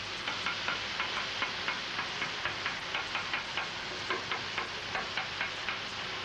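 Metal spatula tapping quickly against hamburger patties on a flat-top griddle, about four taps a second, over a steady sizzle of frying meat; the tapping stops near the end.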